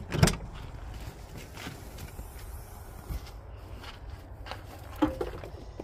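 Footsteps crunching on gravel, with a loud sharp knock just after the start and another knock with a brief squeak about five seconds in, around an open SUV rear hatch as a dog is loaded into the cargo area.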